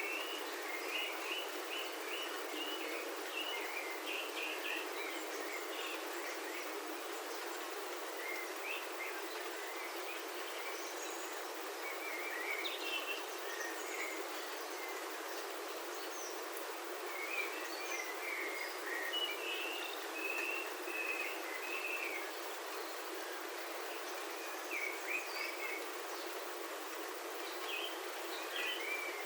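Steady rain on a roof heard from inside, an even hiss, with birds chirping outside in short scattered calls throughout.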